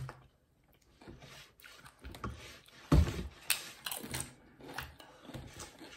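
A person biting and chewing a tortilla chip dipped in guacamole: irregular crisp crunches and mouth clicks, loudest about three seconds in.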